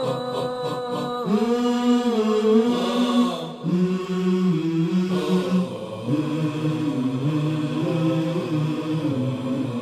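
Melodic vocal chanting in long held notes that waver and step in pitch, with brief pauses for breath.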